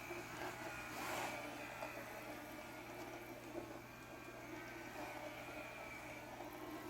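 Vileda ViRobi robot vacuum cleaner running: a steady motor hum with a faint high whine, and a brief louder noise about a second in.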